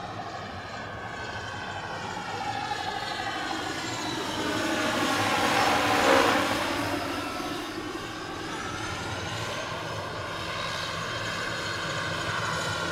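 Radio-controlled scale Mil Mi-24 Hind model helicopter flying past, its engine and rotor sound running steadily. It grows louder to a peak about six seconds in as the model passes closest, then eases off.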